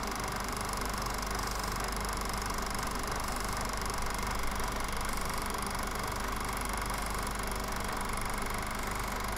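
Steady whirr and hum of a running film projector, with hiss and no change throughout.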